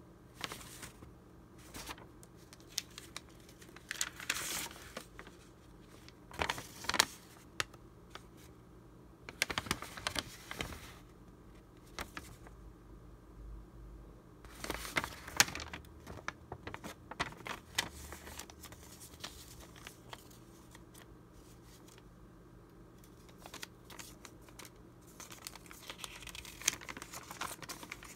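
Old paper documents being handled: dry vintage sheets rustling and crinkling in the hands in irregular bursts with quieter pauses between. Near the end the rustling grows busier as a folded letter is opened out.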